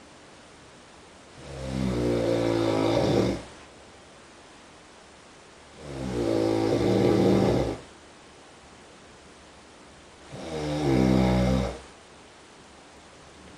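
A person snoring in the next room, heard through the wall: three long, low-pitched snores of about two seconds each, roughly every four and a half seconds, with a faint steady hiss between them.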